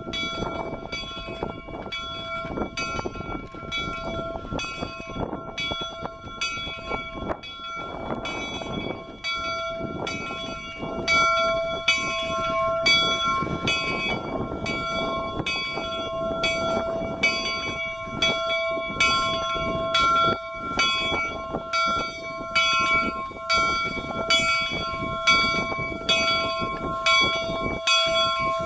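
Steam locomotive's bell ringing steadily, about one and a half strokes a second, over the noise of the locomotive, growing louder about eleven seconds in.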